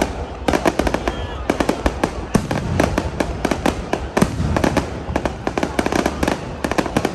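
Fireworks going off in a rapid, overlapping string of sharp bangs and crackles, several a second, with no let-up.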